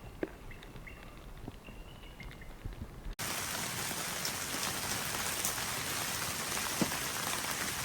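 Quiet at first, with a few faint short high chirps and light clicks. About three seconds in the sound cuts abruptly to a steady, even hiss like rain falling on a surface.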